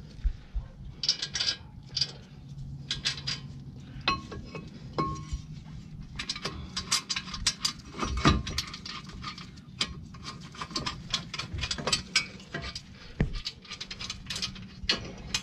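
Light metallic clinks and clicks of steel parts being handled: a front brake caliper mounting bracket and its bolts being picked up and fitted. The clicks come thicker from about six seconds in.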